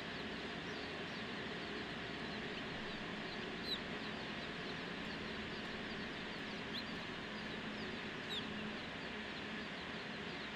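A crowd of day-old chicks peeping: a dense chorus of short, falling peeps, with a few louder single peeps standing out, over a steady low hum.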